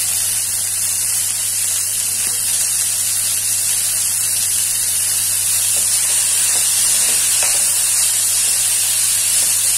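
Steady frying hiss of shredded cabbage, carrot, peas and onion cooking in a metal kadhai, with a few faint scrapes of the spatula stirring the vegetables partway through.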